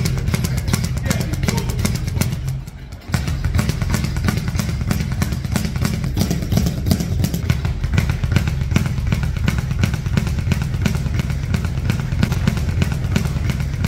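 Speed bag being punched in a fast, continuous rattle of rapid hits against its rebound board, with background music under it. The rattle dips briefly a little before three seconds in.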